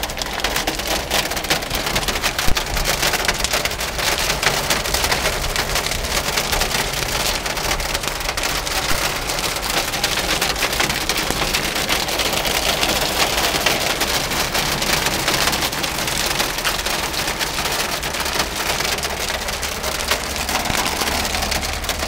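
Hail and heavy rain hitting a car's roof and windows, heard from inside the car: a steady, dense clatter of countless small impacts.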